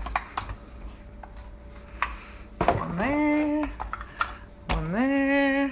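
Plastic K-cup pods clicking and rattling against a wire pod carousel as it is handled and turned, then a voice humming two held notes, each sliding up and then holding steady for about a second.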